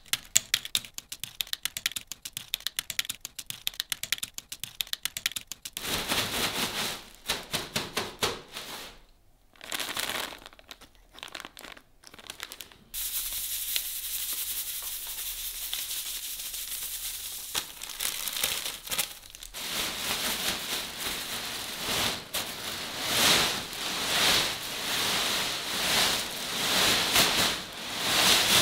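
Fried potato chips dropping into a plastic bag in a quick patter of light clicks, then the plastic bag crinkling. Seasoning powder pours from packets onto the chips with a steady hiss. The full bag of chips is shaken, crinkling and rustling in swells about once a second.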